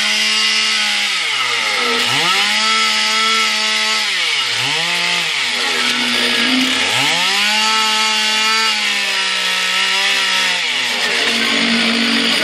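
Petrol chainsaw being revved up and down repeatedly: each time the engine climbs to a high, steady whine, holds for one to four seconds, then drops back to idle. The longest hold comes in the middle.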